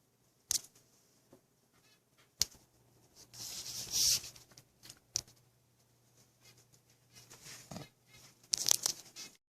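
A few scattered sharp clicks and knocks, with two short bursts of rustling hiss; the sound cuts off just before the end.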